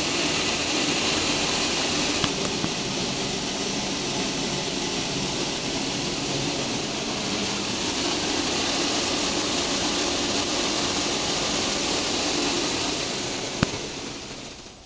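Sesame colour-sorting machine running: a steady, loud hiss over a machine hum. A sharp click comes shortly before the end, and then the sound dies away.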